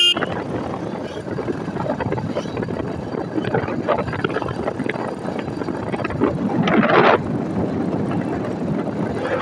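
Royal Enfield Hunter 350's single-cylinder engine running steadily at highway speed under wind rush on the microphone, with a brief louder rush about seven seconds in.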